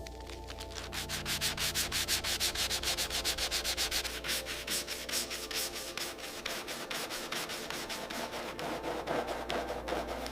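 Hand sanding of a metal gun part in rapid back-and-forth strokes, about six a second, firmest in the first few seconds and then a little lighter.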